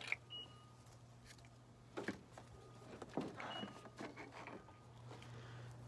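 Faint, scattered clicks and knocks of plastic headlight parts being handled and fitted in the engine bay, over a low steady hum.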